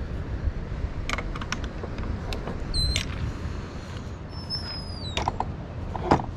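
Footsteps on a coastal path over a steady low wind rumble, with scattered light clicks. Two high, thin whistles sound around the middle, the second falling in pitch at its end, and a sharper knock comes near the end.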